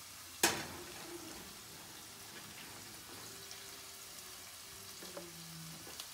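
Ground beef and onions sizzling as they brown in a frying pan, a steady faint hiss. There is one sharp clack about half a second in and a smaller one near the end.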